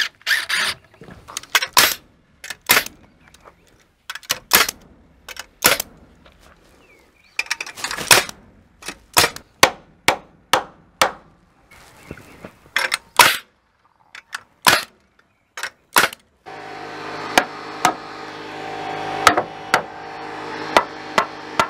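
Hammer striking timber framing: a long string of sharp, separate blows at an uneven pace, some close together.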